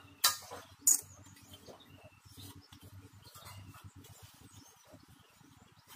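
Aviation tin snips cutting thin galvanized steel channel: a crunching cut and a sharp snap within the first second, then faint scraping and handling of the sheet-metal piece.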